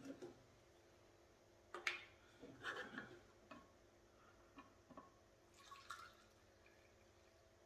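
Faint handling and pouring: a few soft plastic clicks from the jug and its cap, then stove alcohol trickling from a plastic jug into a small plastic measuring cup.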